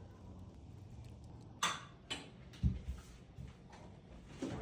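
Handling noise in a kitchen: a sharp click about a second and a half in, a lighter click just after, then dull knocks near the middle and again near the end, over a faint room hum.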